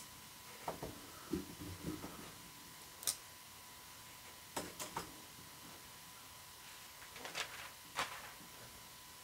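Faint, scattered clicks and light taps of folding knives being picked up, handled and set down on a mat, about a dozen in all, with a quiet stretch in the middle.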